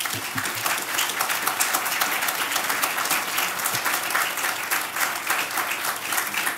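A lecture audience applauding steadily.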